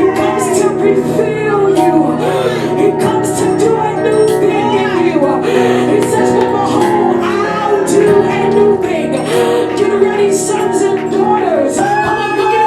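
Church worship music: sustained keyboard chords with a voice singing over them.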